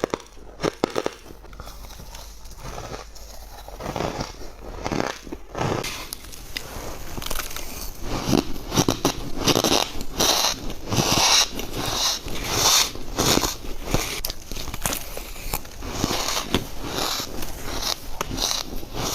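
Close-miked bites into squeaky ice: sharp crunching and cracking as the ice is bitten and chewed. The crunches come apart in the first few seconds, then turn dense and steady from about six seconds in.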